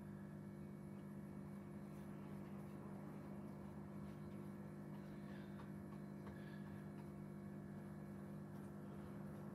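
Quiet room tone with a steady low electrical hum and a few very faint ticks.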